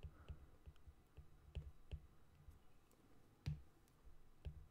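Faint, irregular clicks and taps of a stylus on a tablet's glass screen as letters are handwritten, with one slightly louder tap about three and a half seconds in.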